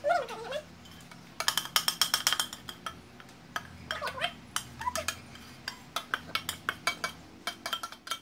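Quick metallic clinks and scrapes of a utensil against a stainless steel saucepan as the last of the chocolate pudding is scraped out into glass bowls. A short wavering voice-like call sounds at the start and again about four seconds in.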